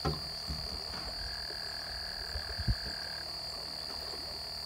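Night-time chorus of frogs and insects: a steady high-pitched drone, joined by a lower trill for about two seconds in the middle. Two soft low thumps, one at the start and one about two-thirds of the way in.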